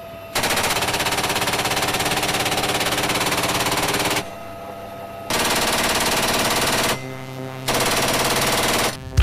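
GAU-21 (FN M3M) .50-caliber machine gun firing three long, rapid bursts from a helicopter door mount: about four seconds, then about a second and a half, then about a second. In the gaps the helicopter's steady engine and rotor drone is heard.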